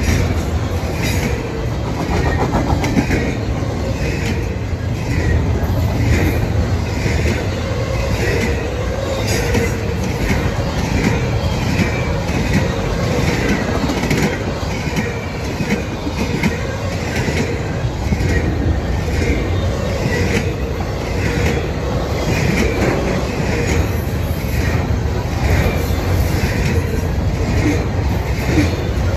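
Double-stack intermodal well cars of a long freight train rolling past at speed: a steady rumble of steel wheels on rail with a regular clickety-clack from the wheels passing over the track.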